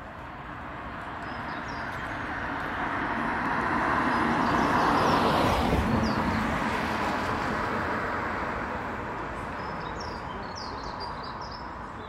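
A road vehicle passing by, its noise swelling for about five seconds and then slowly fading. A few short bird chirps sound about halfway through and again near the end.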